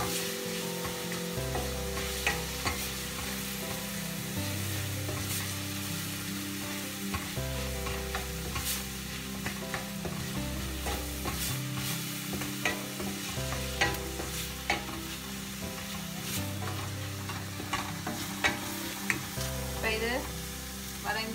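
Chopped onions, green chillies and ginger-garlic paste sizzling in oil in a stainless steel kadai, stirred with a wooden spatula that scrapes and knocks against the pan now and then. They are being sautéed until the raw smell of the paste cooks off.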